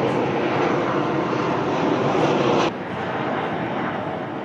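Steady rushing noise of a passing jet aircraft's engines. It drops suddenly in level about two and a half seconds in.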